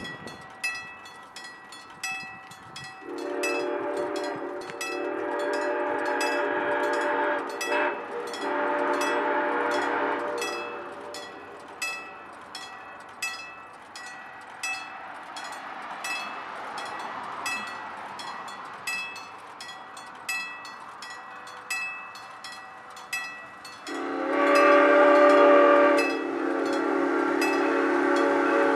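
Southern Pacific 2472's steam whistle blowing for the crossing as the locomotive approaches. Two blasts come early, the first about four seconds long and the second about two. A longer, louder blast starts near the end. Behind it a bell rings steadily about twice a second.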